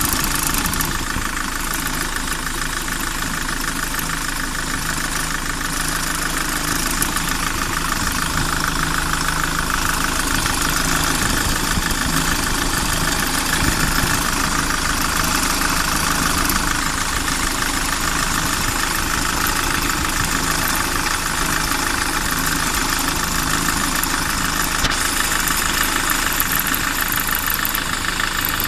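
SsangYong Kyron engine idling steadily, with a fast, even ticking running through it: the extraneous noise in the engine that the owner is pointing out.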